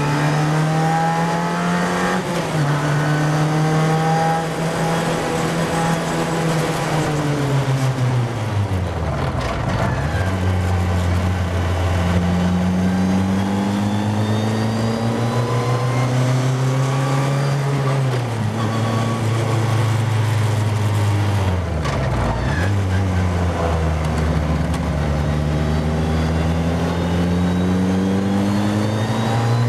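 Formula Ford single-seater's engine heard from the cockpit, pulling hard with its note climbing and changing gear. Twice it slows hard, once about a third of the way in and again about three-quarters in, with the note falling steeply before it climbs again out of the corner.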